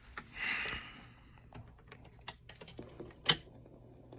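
Vinyl record starting on a vintage Bradford turntable: a brief hiss about half a second in, then scattered clicks and pops, two of them louder, over a faint hum.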